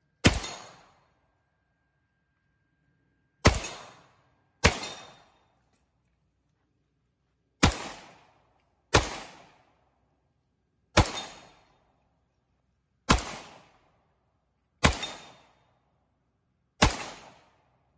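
An AR-15-style rifle firing nine single, aimed shots at an uneven pace, one to three seconds apart. Each sharp crack trails off in a short echo.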